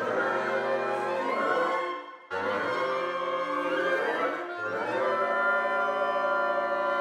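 Sampled woodwind ensemble from 8Dio Symphonic Shadows (flutes, clarinets, bassoons) playing long aleatoric cluster chords with gliding pitches. The first chord cuts off about two seconds in, and a second cluster starts at once, with lower notes joining partway through.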